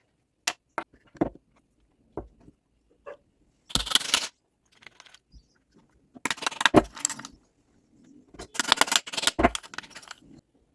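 Small hard objects knocking and rattling: a few single sharp clicks, then three bursts of quick clattering about 4, 6.5 and 8.5 seconds in.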